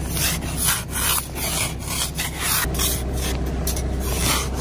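Plastic ice scraper scraping frost off a car windshield in short repeated strokes, about two a second.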